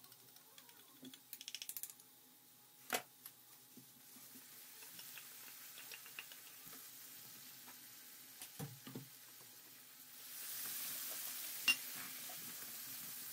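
A metal spoon clinks quickly against a small steel bowl as a tomato-paste sauce is stirred, then taps the rim once. Diced onions fry in a pan with a faint sizzle that grows louder about ten seconds in as the tomato sauce is spread over them with a wooden spoon, with a few knocks of the bowl and spoon against the pan.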